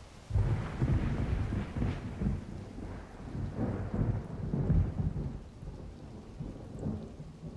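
Thunder rumbling in long rolling swells over steady rain, breaking in suddenly just after the start.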